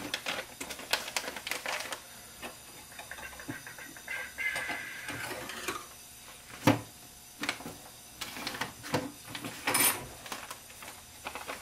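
Workbench handling sounds: paper rustling and scattered small clicks and knocks of tools and parts being moved about, with one sharper knock just past the middle.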